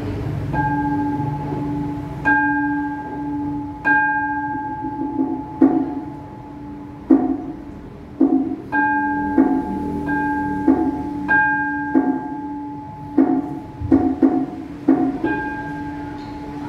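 Bronze temple bowl bell struck again and again, each stroke ringing on with several fixed tones, alternating with shorter, duller strikes that come faster near the end: the bell-and-percussion sequence that opens a Buddhist chanting service.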